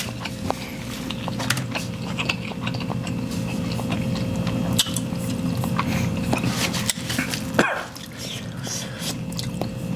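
Close-up eating sounds of spicy instant ramen: noodles being chewed, with wet mouth clicks and a louder slurp about seven and a half seconds in, over a steady low hum.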